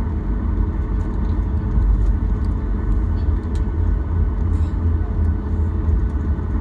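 Steady low rumble of cabin noise in a Boeing 737 on the ground after landing, its engines running at idle, with a faint steady whine above it and a few light rattles.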